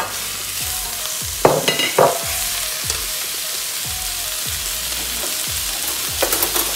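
Minced beef sizzling steadily as it fries in hot oil with softened onions in a stainless steel pot. There are a few sharp knocks and scrapes against the pot about a second and a half in and again near the end.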